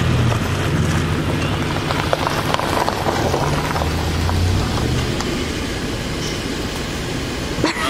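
Jeep Wrangler running and driving slowly past at close range, with its engine rumbling steadily and its tyres hissing on a wet, slushy road.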